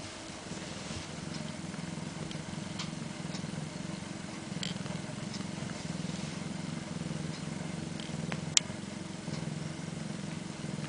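Domestic cat purring steadily while being stroked, with a few faint clicks and one sharp click about eight and a half seconds in.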